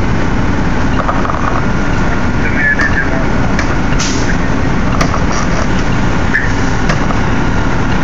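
Fire truck engines and pumps running with a steady, loud rumble and hum, with a few sharp knocks and faint distant voices over it.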